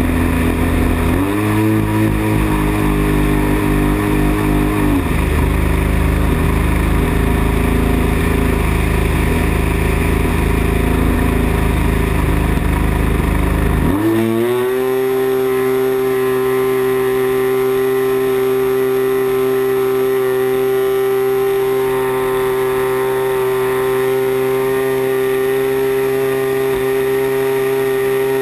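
40cc gas engine of a giant-scale RC plane heard from a camera on board, close up: throttled back at low revs with a heavy low rumble from the wind for the first half, then opened up about halfway through, the pitch rising quickly to a steady high-rpm drone.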